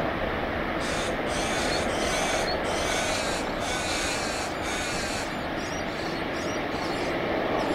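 Jet airliner engines running at takeoff power, a steady loud noise. From about one second in to about five seconds in, a run of about six shrill high-pitched bursts, each shorter than a second, sounds over it, with fainter ones after.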